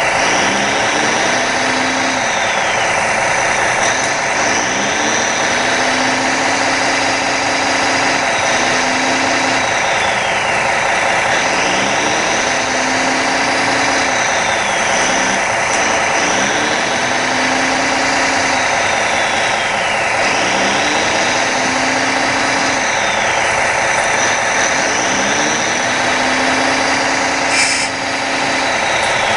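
Radio-controlled 1:16 scale hydraulic excavator working its clam bucket: a steady simulated diesel engine sound, with a whine that rises, holds and falls away every three to four seconds as the hydraulics are worked. A short knock near the end.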